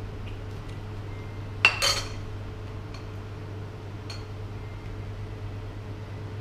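Spoons and forks clinking on plates and bowls at a meal: a sharp ringing clink about a second and a half in, followed at once by a second, with a few light taps scattered around them.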